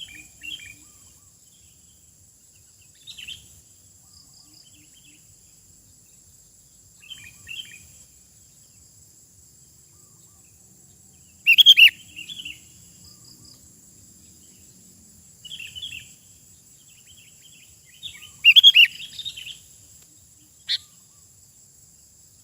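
Sooty-headed bulbul (kutilang) singing: short phrases of quick notes every few seconds, loudest about halfway through and again toward the end, with one sharp single note shortly before the end.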